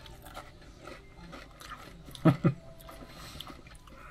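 A person chewing barbecue potato chips, with faint crunches, and two short vocal sounds about two seconds in.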